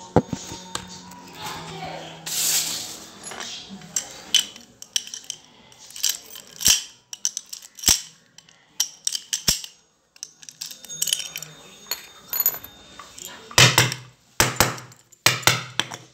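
A steel padlock being handled: a string of sharp metallic clicks and clinks as the lock is turned in the hands and its shackle pressed shut, with heavier knocks near the end as it is set down.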